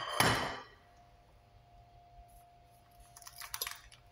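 Kitchen items knocked together as they are handled on a shelf and counter: a sharp clink with a brief ringing at the start, then a few softer clicks and rustles about three seconds in.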